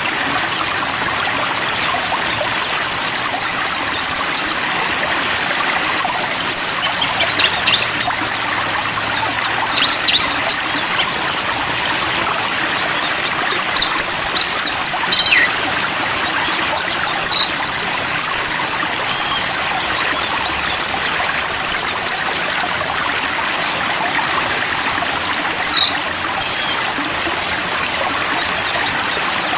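Steady rush of flowing stream water, with a small songbird singing short, high whistled phrases of quick falling notes about every three to four seconds.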